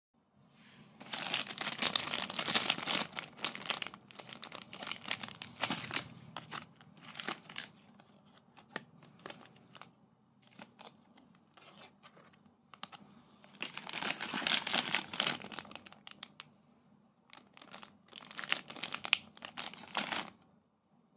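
Plastic and foil snack packets crinkling as they are handled, in several bouts: a long one near the start, another in the middle and a last one near the end.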